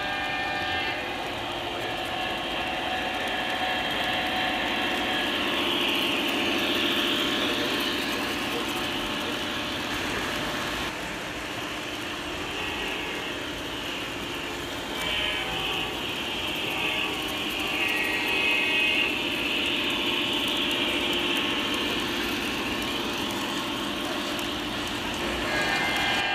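O scale model trains running on three-rail track, the wheels clattering along steadily, with a sound-equipped diesel locomotive's horn: one blast ends about a second in and another starts at the very end.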